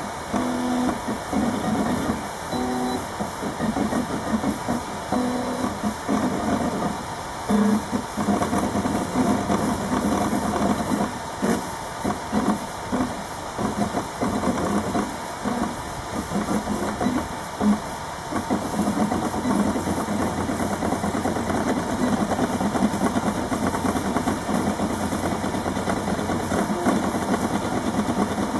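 RepRap Mendel 3D printer printing, its stepper motors whining and buzzing in short tones that jump in pitch with each move of the axes. The moves come in quick short back-and-forth strokes through the middle and turn into a denser, more even run near the end.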